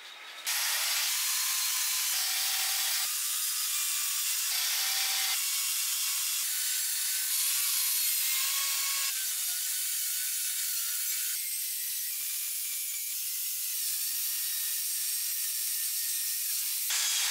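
Corded electric chainsaw cutting into a palm tree trunk, starting about half a second in. It runs steadily, with abrupt changes in tone every few seconds where the footage is spliced.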